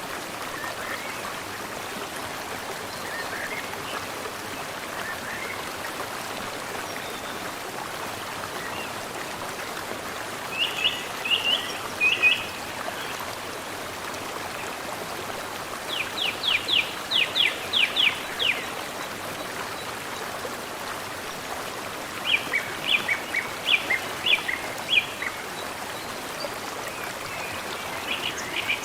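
Mountain stream flowing steadily, with a small bird singing over it: three short bursts of quick, high chirps, one a fast run of about eight sharp notes, and a fainter call near the end.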